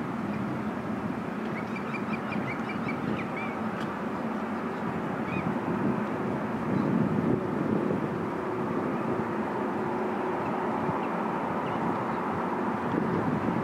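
Boeing 747-400's four jet engines at taxi power, a steady rumble with a faint whine. A quick run of bird chirps rises above it about two to three seconds in.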